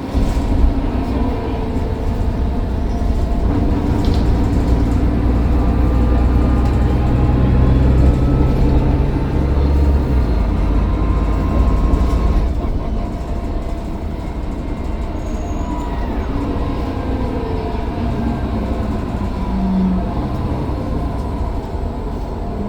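Mercedes-Benz Citaro O530 bus's diesel engine pulling under power, its deep engine note strongest for the first ten seconds and then easing off. Over it, the turbocharger whines, rising and falling in pitch.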